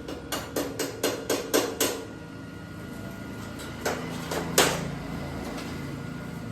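Hammer blows on metal: a quick run of about eight strikes, about four a second, then a pause and two more strikes, over a steady low hum.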